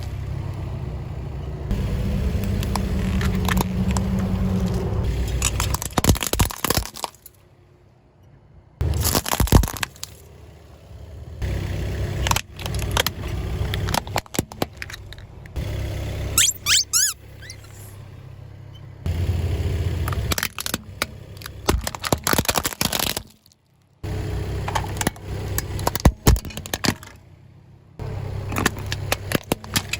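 Car tyres rolling slowly over objects and crushing them, with repeated sharp cracks and crunches over a low tyre and engine rumble. The sound comes in several short segments that cut off abruptly.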